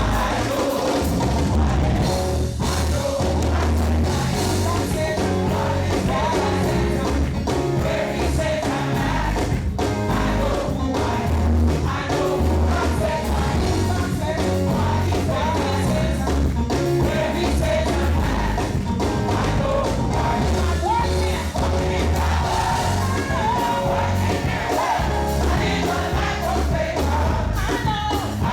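Live gospel praise music: a band with a steady bass-heavy beat, and a choir and congregation singing along.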